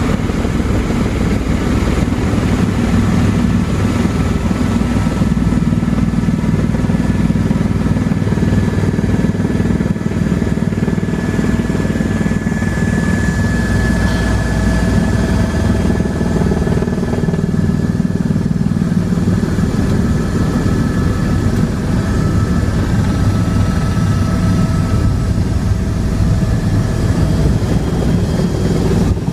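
Helicopter engine and rotor running steadily in flight, heard from inside the cabin: a loud low drone with a thin high whine over it.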